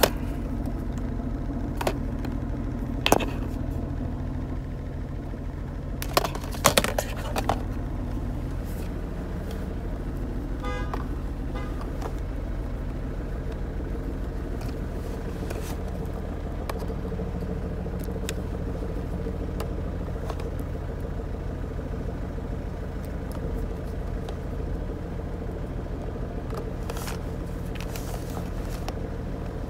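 Mercedes C220 diesel engine idling steadily, with a few sharp clicks and knocks in the first several seconds as the diagnostic cable and plug are handled.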